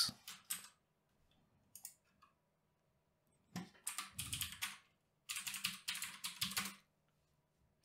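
Typing on a computer keyboard: a few scattered keystrokes, then two quick runs of keystrokes, each a little over a second long, in the second half.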